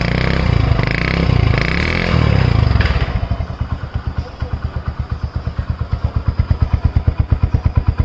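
Motorcycle engine revved a few times over the first three seconds, then settling back to a steady idle with an even beat of exhaust pulses.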